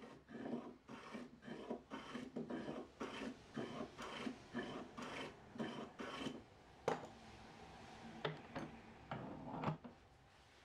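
Block plane cutting chamfers on a hardwood edge in quick short strokes, about two a second, each a brief rasp of shaving. It stops a little past the middle, and then come a sharp knock and a few softer knocks as the tool is handled.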